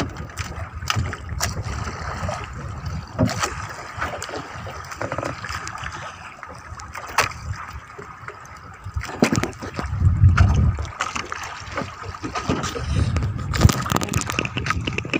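Water sloshing and gurgling against a small wooden boat's hull, with scattered sharp knocks and clicks and low rumbling bumps as a handline is hauled in by hand over the side.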